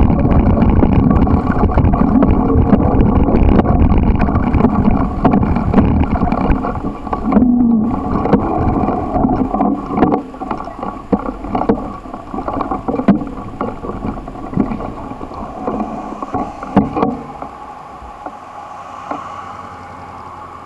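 Bicycle riding over bumpy grass: a loud rumble of jolts and rattles from the bike and the handheld camera, mixed with wind noise on the microphone. The knocks thin out and the noise fades over the last several seconds.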